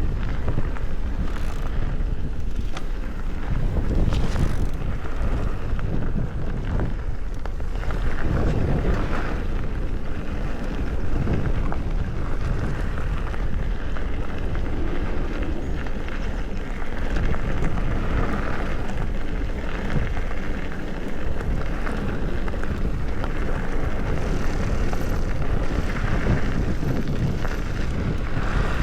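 Wind buffeting the microphone over the rattle and tyre noise of a bicycle ridden along a rough trail, with an uneven low rumble throughout.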